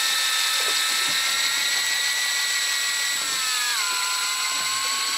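Electric fishing reel's motor whining steadily as it winds in a hooked cod; a little over three seconds in, its pitch drops and holds lower.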